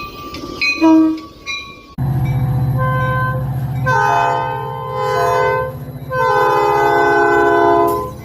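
Train horn sounding two long blasts over a steady low rumble, after a couple of seconds of brief short tones that end in an abrupt change.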